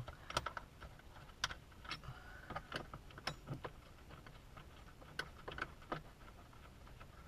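Faint, scattered light clicks and small metallic clinks of hand tools and small fasteners being handled while dash parts are taken apart.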